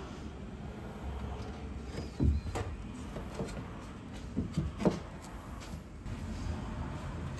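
A sheet of plasterboard being pushed up into place on a ceiling: a few knocks and scrapes as it bumps against the timber framing, the loudest about two and a half seconds and five seconds in, over a steady low hum.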